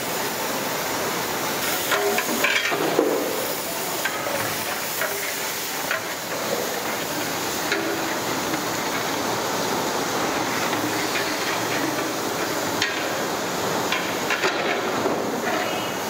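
A large pot of water boiling hard over a wood fire, a steady hiss, while a long metal paddle stirs it and knocks against the pot a few times.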